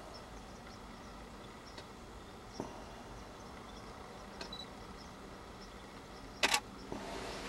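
Faint outdoor ambience with scattered faint high chirps and a few small clicks, broken by one short, sharp noisy burst in two quick parts about six and a half seconds in.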